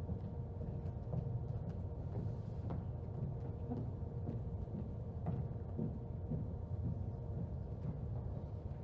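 Large-room background: a steady low rumble with a faint constant hum, and a few scattered faint knocks.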